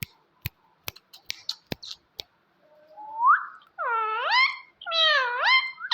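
A pet parrot calling. It starts with a run of sharp clicks, then gives about three swooping calls that dip and rise in pitch.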